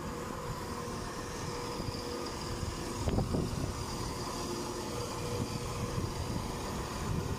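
Class 171 Turbostar diesel multiple unit moving slowly past, its diesel engines and running gear giving a steady hum, with a short knock about three seconds in.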